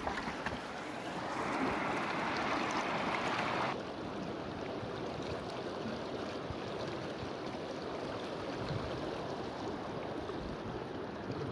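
River water flowing over stones, a steady rush. For the first few seconds a louder hiss of water close by stops abruptly about three and a half seconds in.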